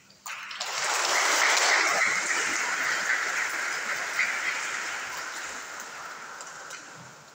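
Congregation applauding: the clapping starts suddenly, is loudest within the first two seconds, then slowly dies away.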